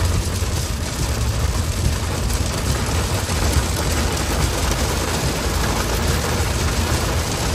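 Loud, steady heavy rain drumming on a car's roof and windshield, heard from inside the cabin over the car's low rumble.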